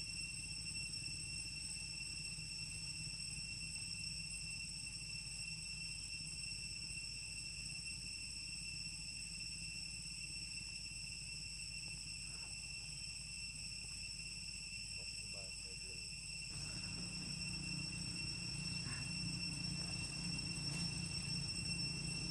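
A steady, unbroken high-pitched insect drone, like crickets, over a low rumble that grows louder about three-quarters of the way in.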